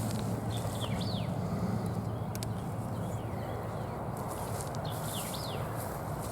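Small birds chirping with short falling notes, a few times about a second in and again near the end, over a steady rustling noise and low hum, with a couple of sharp clicks midway.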